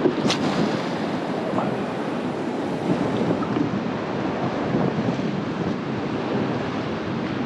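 Sea water rushing and splashing along a small boat's hull as it moves, with wind buffeting the microphone; a single short sharp click comes just after the start.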